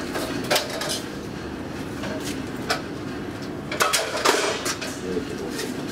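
Elevator running with its doors shut: a steady low rumble with a few sharp clicks and knocks, the loudest about four seconds in.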